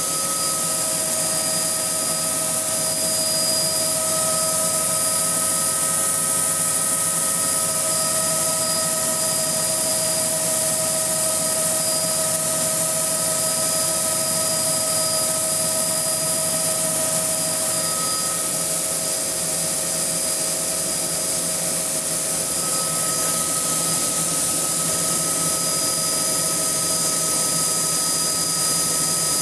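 Helicopter cabin noise in cruise flight: a loud, steady drone of engine, rotors and airflow, with a high hiss and a few steady whines running through it.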